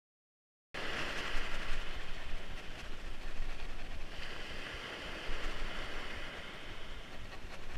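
Wind buffeting the camera microphone with a low rumble, over the hiss of surf washing up the beach, cutting in suddenly after a brief silence.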